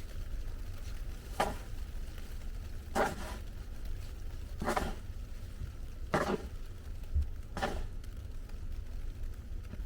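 Five short crunching scrapes, evenly spaced about a second and a half apart, over a steady low rumble.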